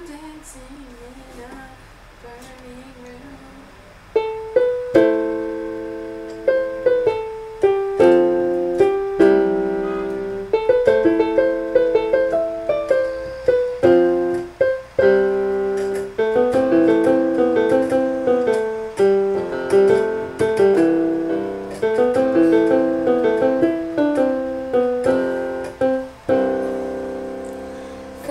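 Piano playing a song's introduction, chords under a melody, each note struck and dying away. It starts soft and becomes much louder about four seconds in.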